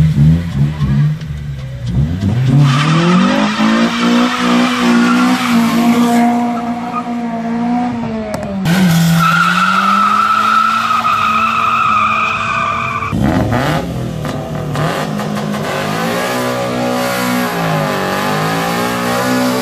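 Car engines revving high with the rear tyres spinning and squealing in burnouts, the revs climbing, holding and dipping. The sound changes abruptly about thirteen seconds in, as another burnout takes over.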